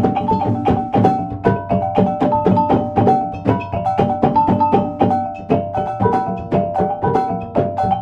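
Percussion music: tuned struck instruments ringing out a fast, repeating pattern of notes over drums.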